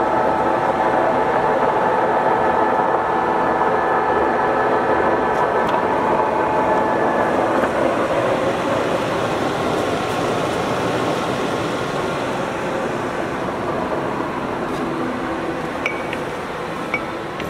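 Summit gap-bed engine lathe running with its chuck spinning: a steady mechanical hum with a whine of several tones that changes about halfway through and eases slightly near the end. Two light clicks come near the end.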